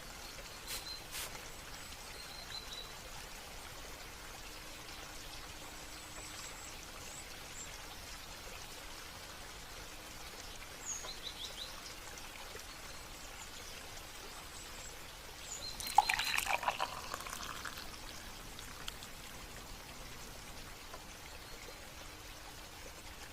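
Water trickling steadily, with a few faint, high bird chirps. About two-thirds of the way in comes a louder, brief burst of quick clicking sounds that lasts about a second and a half.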